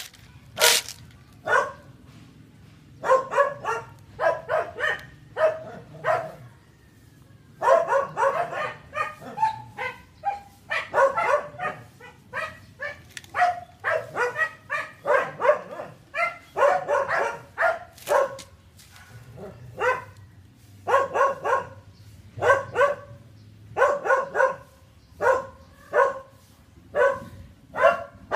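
A small animal's short, high calls repeated several times a second in runs, with brief pauses between the runs.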